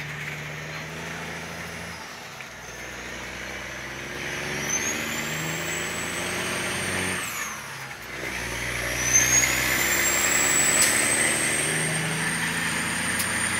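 Semi truck's diesel engine pulling a heavily loaded trailer, revving up through a gear, dropping off for a shift about seven seconds in, then revving up again. A high whistle rises with each pull.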